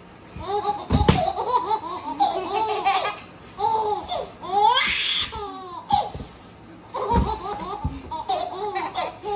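Young children laughing in short repeated bursts of giggles, a baby's laughter among them. Two low thumps come about a second in and about seven seconds in.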